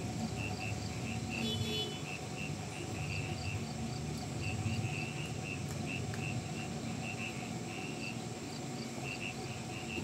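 Crickets chirping in short, repeated pulses over the low, steady rumble of a heavy truck's engine moving slowly.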